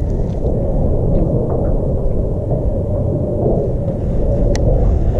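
Wind buffeting the camera microphone: a loud, steady low rumble, with one light click near the end.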